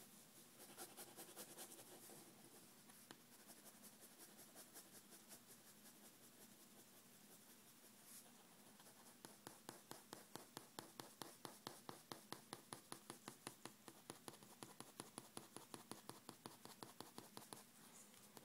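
Faint scratching of a pen on paper as a face is drawn: longer, looser strokes at first, then from about halfway in a fast run of short hatching strokes, about four or five a second.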